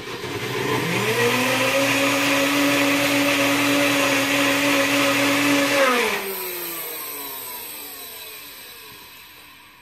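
NutriBullet Prime blender running, blending a cashew-based cheese sauce: the motor spins up within the first second, runs at a steady high speed for about five seconds, then cuts off about six seconds in and winds down with a falling whine.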